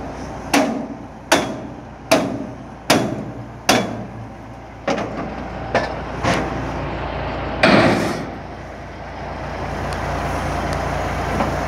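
Hammer blows on metal: five sharp, ringing knocks a little faster than one a second, then a few more spaced out, and a longer, louder clatter about eight seconds in. A steady low engine drone runs underneath and grows louder near the end.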